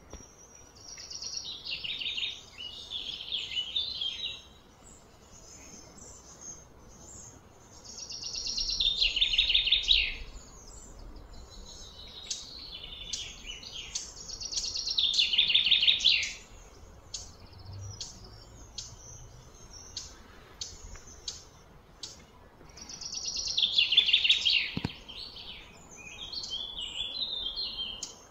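A bird singing in repeated bouts of a fast, high trill that falls in pitch, each bout building in loudness over a couple of seconds, about five times.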